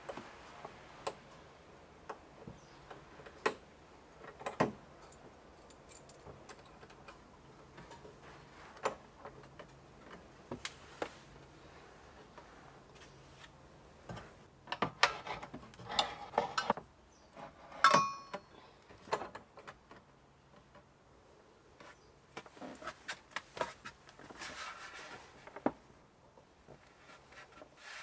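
Scattered light clicks and knocks, then a busier run of small metal clinks and wooden taps in the middle with one sharp ringing metal click: a carabiner and metal fittings being handled as a hinged wooden table is fastened up to a ceiling hook.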